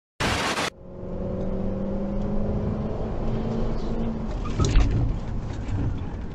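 A brief burst of TV static as a transition, then a car's engine running steadily under road noise, recorded from inside by a dashcam. A sudden loud thump comes about three-quarters of the way through.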